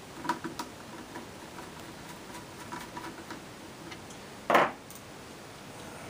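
Light clicks and ticks of a small screwdriver and screws against the metal chassis of an opened mini PC being reassembled, with one louder brief knock about four and a half seconds in.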